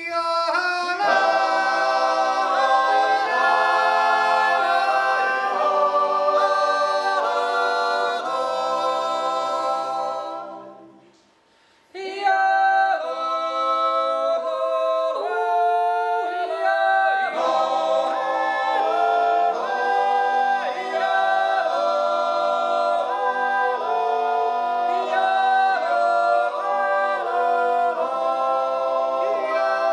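Swiss men's yodel choir singing a cappella in held, full chords. The singing dies away about ten seconds in, pauses briefly, and starts again.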